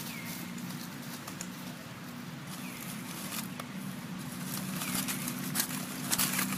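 Dry fallen leaves crackling and rustling, the crackles growing denser and louder near the end, over a steady low hum.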